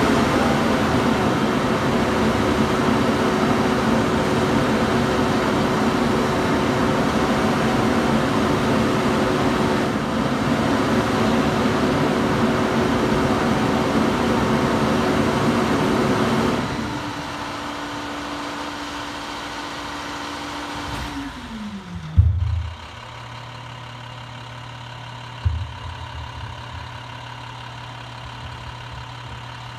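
International WorkStar rear-loader garbage truck's diesel engine running loud and fast. About two-thirds of the way through it drops back, its pitch sliding down to a steady low idle. A loud thump comes as it settles, and a lighter knock follows a few seconds later.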